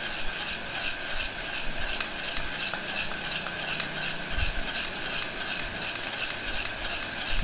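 Electric heat gun blowing steadily into a metal pot while a metal spoon stirs green coffee beans, the beans rattling and the spoon scraping in a quick, even rhythm of a few strokes a second.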